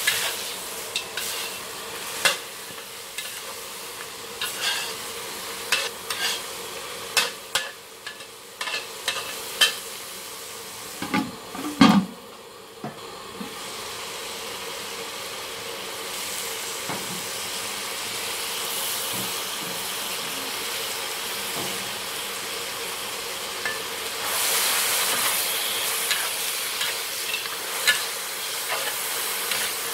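Chicken pieces sizzling in a hot black wok while a metal spatula scrapes and clanks against it, with one loud knock near the middle. About two-thirds through the sizzle grows louder and hissier as leafy greens go into the wok.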